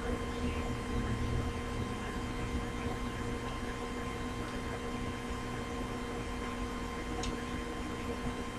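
A steady electrical hum with a faint click about seven seconds in.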